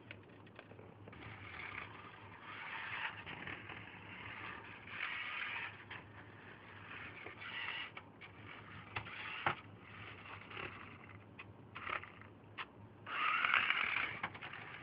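Radio Shack toy RC Lamborghini Countach's small electric motor and gears whirring in spurts as it drives, with scattered sharp clicks. The whir is loudest near the end.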